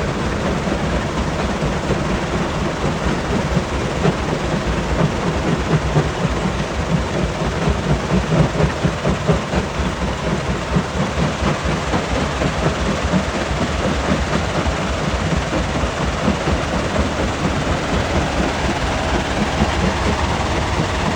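Stone crusher running under load, a steady heavy rumble and grinding with irregular knocks as rock is broken up.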